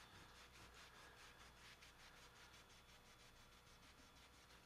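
Faint, rhythmic rubbing at about four strokes a second, fading towards the end: the plastic cocking handle of a toy rifle being hand-polished with Flitz polish.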